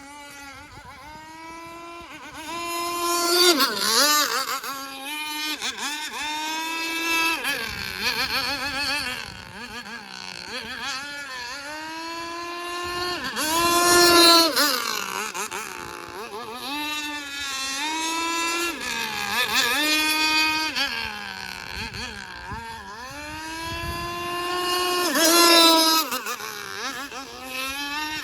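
Small engine of a fuel-powered radio-controlled V-hull boat running. Its pitch rises and falls over and over as the throttle is opened and eased, with the loudest peaks about 4, 14, 20 and 25 seconds in.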